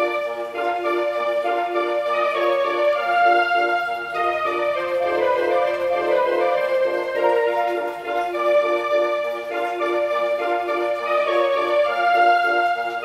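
Seiko quartz wall clock's electronic melody chime playing a tune of many overlapping piano-like notes at a steady level.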